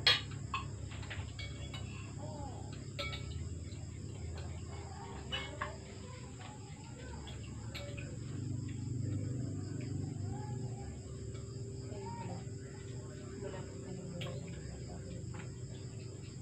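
Steady night chorus of crickets and other insects, with now and then the sharp clink of spoons and forks on plates, the loudest clink right at the start.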